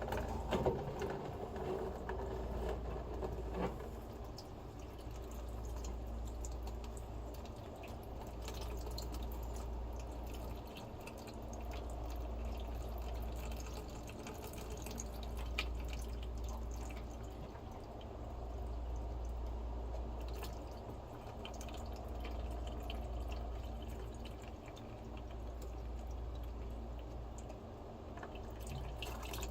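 Dirty water draining out of a washing machine's opened drain trap into a bucket, trickling and dripping steadily. Under it a low rumble swells and fades every few seconds.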